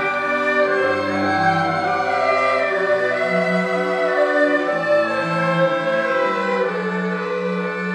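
Chinese traditional orchestra playing live: held notes on bowed strings over a sustained cello bass line that shifts to higher bass notes about three seconds in.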